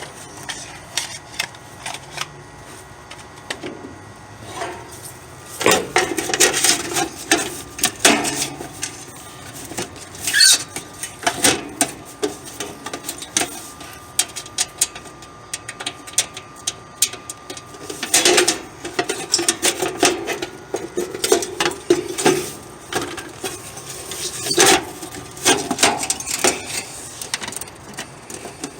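Hand work on an air-conditioner's capacitor and wiring: irregular metallic clicks, clinks and rattles from tools, terminals and panel parts being handled, in several busier flurries.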